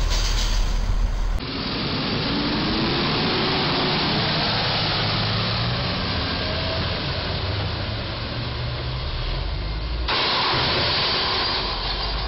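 Road traffic: a truck engine running as it moves, over steady road and wind noise. There is no crash impact. The sound character changes abruptly twice, about 1.5 s and 10 s in.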